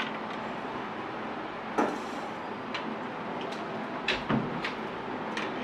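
A few sharp knocks and clicks of kitchen utensils against boards or containers, the loudest about two seconds in and a pair just after four seconds, over the steady background noise of a busy street food stall.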